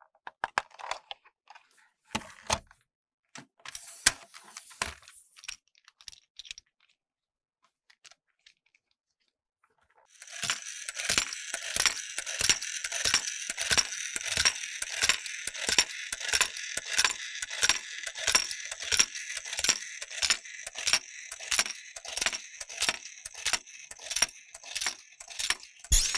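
A battery-powered toy domino-laying train: a few scattered plastic clicks as it is handled, then from about ten seconds in its small motor whirs steadily while the mechanism clacks about twice a second, dropping plastic dominoes one after another.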